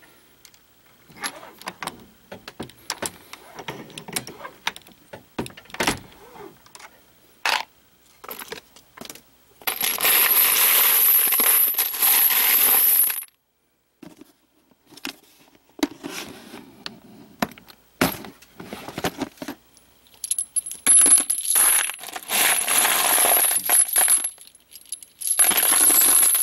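Empty 9mm brass cartridge cases clinking and jingling as handfuls are scooped up and poured back onto a pile of cases in a plastic tub. Scattered clicks and rattles come first, then two long runs of dense metallic jingling: one about ten seconds in lasting three seconds, and one from about twenty seconds in until the end.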